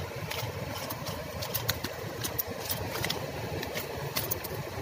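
A fish impaled on a slingshot arrow flopping on concrete, its body and the arrow shaft slapping and tapping the ground in sharp, irregular clicks, over a steady low engine-like rumble.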